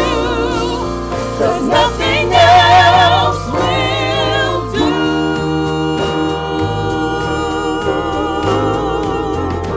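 Gospel vocal ensemble singing in harmony with vibrato over keyboard, bass guitar and drums. About halfway through, the voices stop and the band plays on with sustained keyboard chords and drums.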